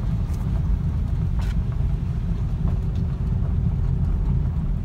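Jeep driving on a gravel road, heard from inside the cabin: a steady low rumble of tyres on gravel and engine, with a couple of faint clicks.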